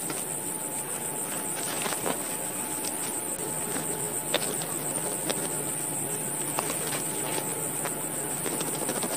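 Steady high-pitched insect chirring, like crickets, with scattered faint crisp snaps as grass stems are cut with a small hooked blade.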